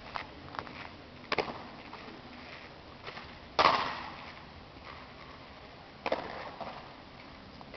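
Two-man exhibition rifle drill: four sharp knocks and slaps a second or more apart, the third loudest and followed by a short ringing decay.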